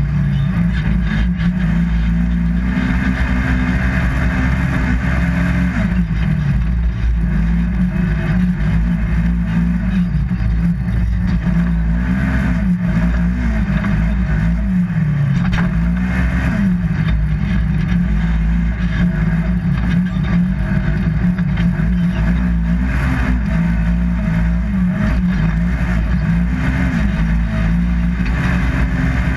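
Polaris RZR 1000XP side-by-side's parallel-twin engine running hard while racing, its pitch rising and falling over and over with throttle.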